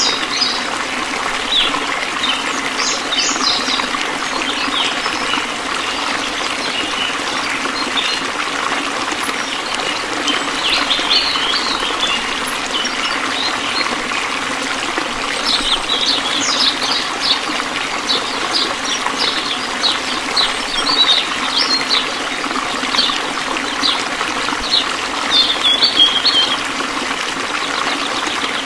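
A thin stream of water trickling and pouring from a miniature pump's outlet pipe into a tin tub. Short bird chirps come and go over it.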